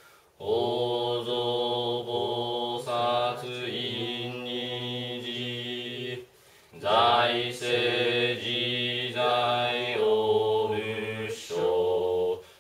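Buddhist shōmyō chanting by low male voice in long, drawn-out held notes, breaking off briefly about six seconds in and stopping abruptly at the end.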